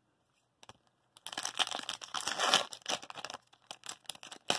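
Wrapper of a 2019-20 Tim Hortons hockey card pack crinkling and tearing as it is pulled open by hand, starting about a second in and going on in quick crackly bursts.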